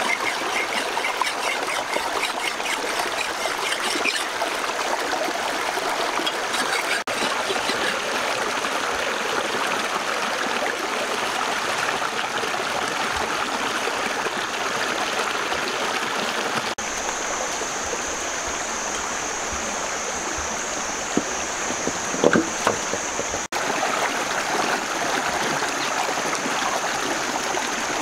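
Shallow rocky stream rushing and splashing over stones, a steady water noise, with a few brief knocks about three quarters of the way through.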